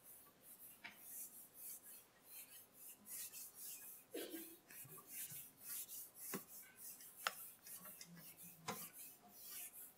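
Whiteboard eraser wiped across a whiteboard in repeated faint swishing strokes, with a few light knocks between them.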